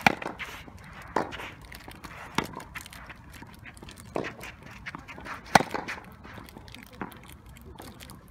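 Tennis rally: sharp pops of racket strings striking the ball and the ball bouncing on an artificial-grass court, coming every second or so. The loudest hits are near the start and about two-thirds of the way through.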